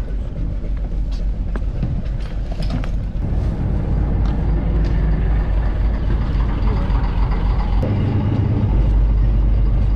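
An engine running steadily with a deep hum, getting louder about eight and a half seconds in.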